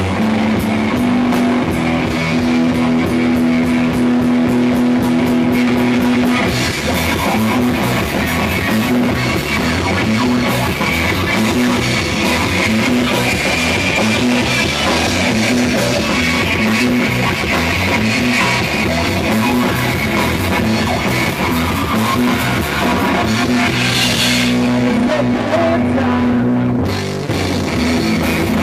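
Rock band playing live: electric bass, electric guitar through a Marshall amp, and drum kit. A long held note rings over the band about a second in and again near the end, with a brief drop in level just before the end.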